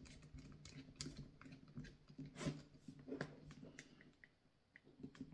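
Faint, irregular small clicks and scrapes of a screwdriver turning the left-hand-thread retaining screw inside a drill chuck as it is tightened. A low steady hum sits underneath.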